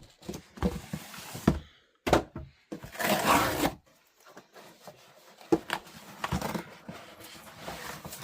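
Handling of parcel packaging and a book: scattered knocks and taps, with a brief burst of rustling about three seconds in.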